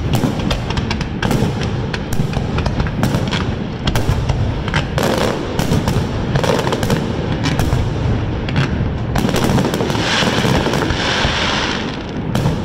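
Fireworks display: aerial shells bursting in quick succession, a dense barrage of sharp bangs over a low rumble, with a spell of hissing crackle near the end.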